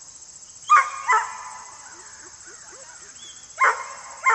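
Dog barking: two quick pairs of sharp barks, one about a second in and one near the end.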